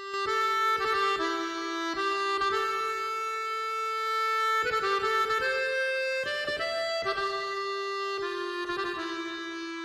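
Instrumental music: a melody of held, reedy notes over a sustained lower note, the notes changing every half second or so.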